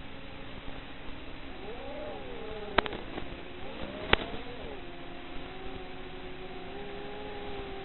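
ZMR 250 quadcopter's motors whining, their pitch wavering up and down as the throttle changes. There are two sharp clicks, about three and four seconds in.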